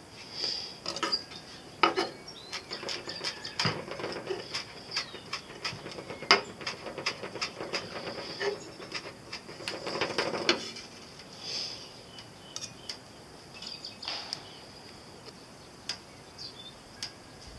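Chef's knife chopping fresh herbs on a wooden cutting board: a quick run of knocks for about the first ten seconds, then only scattered soft clicks and rustles as leaves are pulled from their stems by hand. A steady high insect drone sits underneath.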